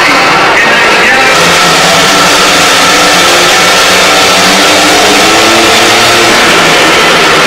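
Several 500cc single-cylinder speedway motorcycles revving together at the start gate, their engine note shifting up and down, then pulling away near the end.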